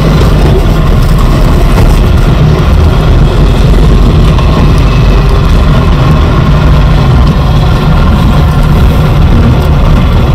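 Trabant engine running steadily, heard from inside the small car's cabin as it moves off slowly in low gear.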